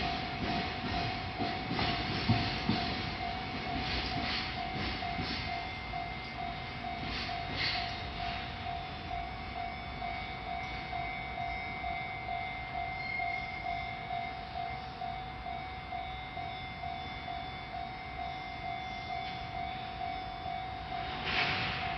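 A train running over a Japanese level crossing, its wheels clicking over the rail joints for the first several seconds and then easing off, while the crossing's warning bell keeps ringing in an even, pulsing beat.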